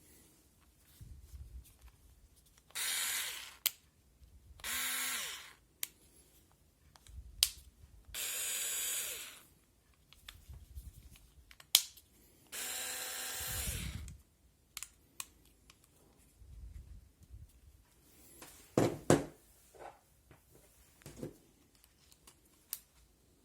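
Parkside cordless screwdriver's motor running in four short bursts of about a second each, with clicks and knocks between the runs.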